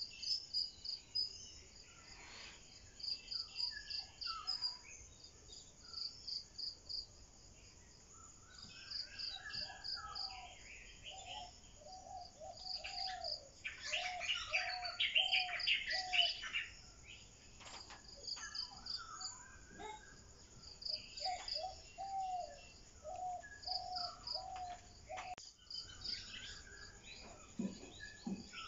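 Birds calling and insects chirping. A fast, high-pitched chirping repeats in short runs throughout, and series of short, lower bird notes come in runs near the middle and again later.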